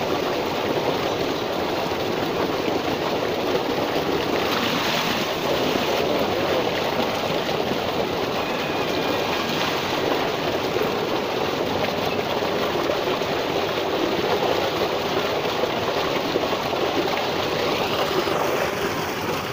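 Steady water gushing from a large pipe outlet and splashing into a concrete tank of water, unbroken throughout.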